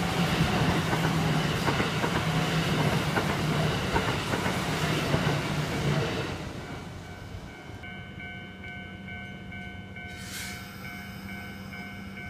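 A Kintetsu Nara Line train passing close by, its running noise loud and steady, then fading away about six seconds in. After that a Japanese level-crossing bell rings on, an electronic clang repeating about twice a second.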